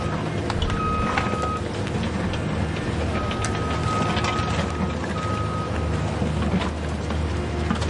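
Steady low engine hum of a construction vehicle. A high, steady warning beep comes on and off several times over it, along with scattered light clicks.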